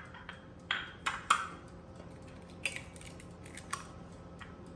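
Light clinks and taps of glassware: small glass cups and a spoon knocking against a glass mixing bowl and the countertop. Three sharper clinks come in the first second and a half, then a few fainter ones.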